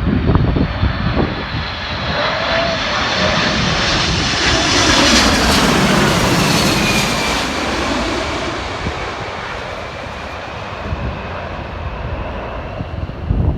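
Jet airliner's engines passing close by: the whine and roar build to a peak about midway, then the tones slide down in pitch as it moves away. Wind buffets the microphone with a low rumble at the start and end.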